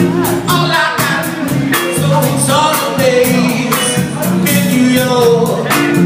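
Live soul band playing a song with a singer over a steady drum beat and bass line.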